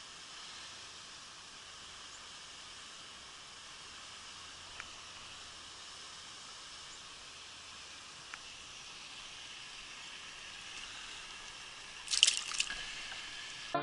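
A small bass released back into the lake, landing with a short splash near the end. Before that there is only a faint steady outdoor hiss with two soft ticks.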